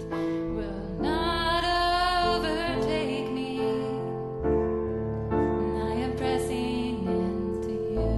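Slow, tender worship music: sustained keyboard chords with a solo voice singing long held notes over them.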